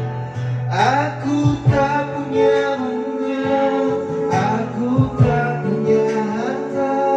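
Music: a slow ballad sung in long held notes over guitar accompaniment.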